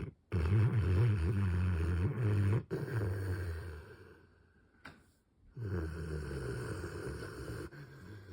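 Dog snoring in its sleep: two long, loud snores, the second beginning about halfway through and trailing off near the end.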